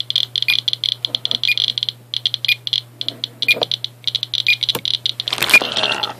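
Geiger counter clicking rapidly over uranium-doped Vaseline glass, with its high-pitched radiation alarm beeping in pulses over the clicks. A brief rustle of handling comes about five seconds in.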